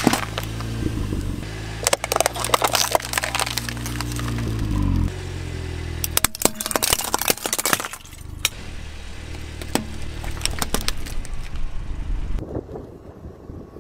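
Car's tyre rolling over plastic cups and crushing them, in several bursts of cracking and crunching plastic, with the car's engine running low underneath until about five seconds in.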